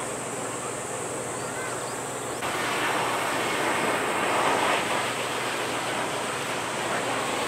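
Jet airliner engine noise mixed with wind on the microphone: a steady rushing hiss that jumps louder a little over two seconds in.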